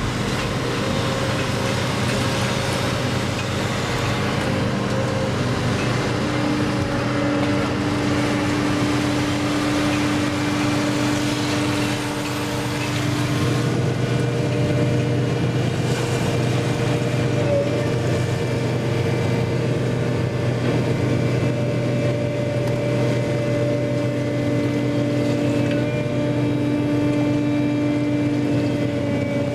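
Hydraulic excavator's diesel engine and hydraulic pumps running steadily, heard from inside the operator's cab while working a clamshell grab under water. Over the steady hum, a higher whine comes in for several seconds at a time and drops out.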